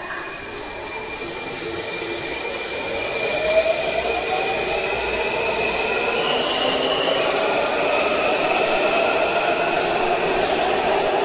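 Washington Metro subway train pulling out of an underground station and accelerating, getting steadily louder, with a motor whine that rises in pitch from about three seconds in. Wheel-on-rail noise and regular high hissing strokes build as it gathers speed.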